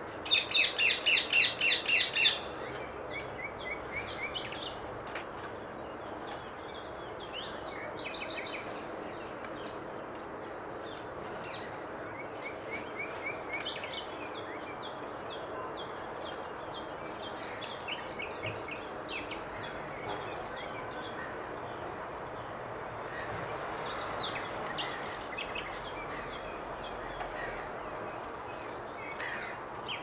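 Rose-ringed parakeet giving a loud run of about eight harsh screeching calls in quick succession, about four a second, lasting two seconds. This is followed by fainter, scattered bird chirps and short whistles over a steady outdoor background noise.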